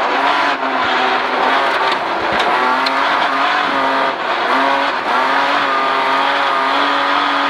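Rally car's engine running hard at high revs, its pitch mostly steady with a few brief dips, over steady road noise from the tyres, heard from inside the car.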